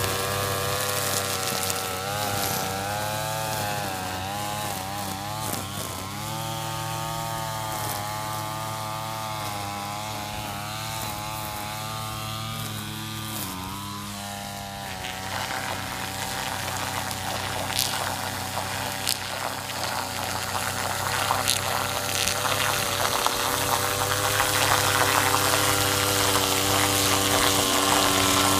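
Redmax two-stroke string trimmer running and cutting grass, its engine speed rising and falling as the throttle is worked. About halfway through it settles into a steadier, louder run.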